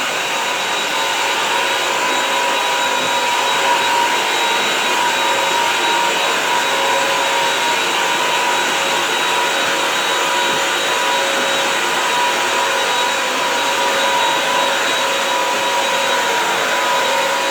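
Bissell CrossWave wet-dry floor cleaner running steadily while cleaning a dirty floor: an even rushing of suction with a constant whine, unchanged throughout.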